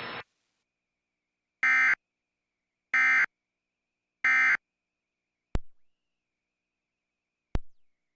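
Emergency Alert System end-of-message data burst: three short bursts of data tones, each about a third of a second long and about a second apart. A hiss cuts off at the very start, and two sharp clicks follow near the end, about two seconds apart.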